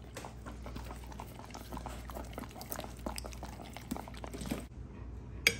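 Dogs licking yogurt off a metal spoon: a run of quick, wet licks and mouth smacks that stops suddenly with about a second left, followed near the end by one sharp click.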